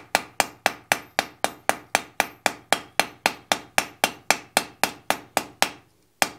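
Hand hammer striking a hot wrought-iron bar's tip on the anvil in a steady run of light, quick blows, about three a second, each with a short ring. The blows are kept gentle so the thin, layered wrought iron does not split apart. They stop near the end, with one last blow after a short pause.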